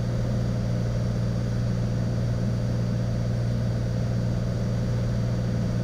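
Cessna Skylane's single piston engine and propeller droning steadily in cruise flight, a constant low hum heard from inside the cabin.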